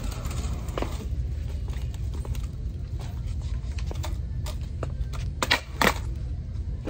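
Skateboard on a hard store floor: a low rolling rumble with scattered light clicks, then two sharp clacks close together near the end.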